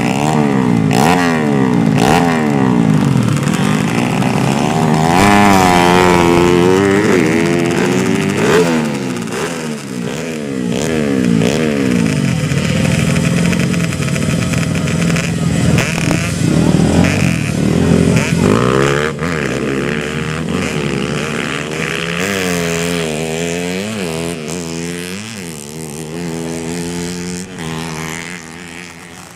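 Underbone motorcycle engine revving over and over, its pitch climbing and falling again with each blip of the throttle, fading somewhat near the end.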